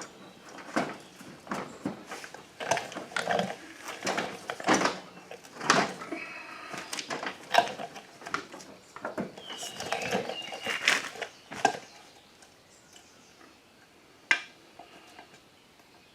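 Irregular clinks, knocks and handling noise of a lawn mower wheel being fitted back onto its axle. The knocks come close together at first, then it goes quieter with a single sharp knock near the end.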